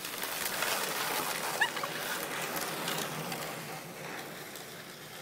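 Plastic laundry basket with a person in it sliding over icy snow: a rushing scrape that swells over the first second and fades as it moves away. There is a brief squeak about a second and a half in.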